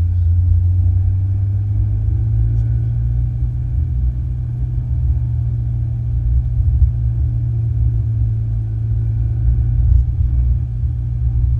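Ferrari 488 GTB's twin-turbo V8 and road noise running as a steady low rumble while driving, the engine note stepping up slightly about two seconds in.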